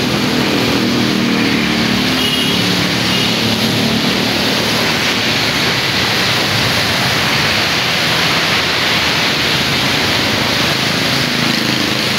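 Steady traffic on a rain-soaked road: motor scooters and cars passing, their tyres hissing on the wet asphalt over a constant rain hiss. A passing scooter's engine hum stands out in the first few seconds and again near the end.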